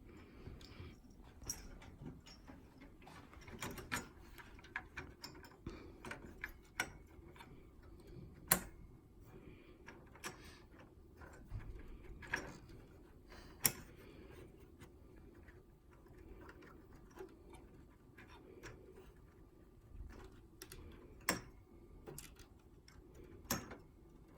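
Scattered small clicks and knocks of a CPU heatsink and fan being fitted and clipped down onto a motherboard, with two sharper clicks, one about a third of the way in and one a little past halfway, over a faint steady hum.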